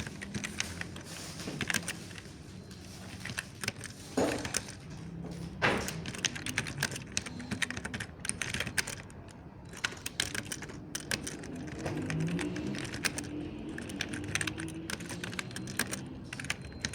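Mechanical keyboard being typed on: an irregular, fast stream of soft key clicks, with a few louder strokes standing out.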